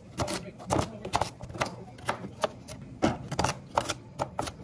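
Chef's knife chopping a peeled raw sweet potato on a cutting board: a dozen or so sharp knocks of the blade through the flesh onto the board, about two to three a second, unevenly spaced.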